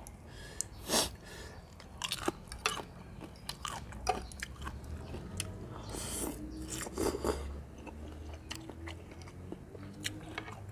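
Close-miked eating: crisp bites and wet chewing of raw young leucaena pods and papaya salad. A noisy slurp of rice noodles comes about six seconds in.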